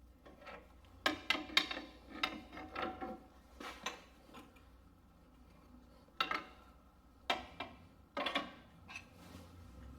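Intermittent metal clinks, knocks and scrapes of a pry bar and steel bolt being worked into a car's lower control arm mount, coming in short clusters.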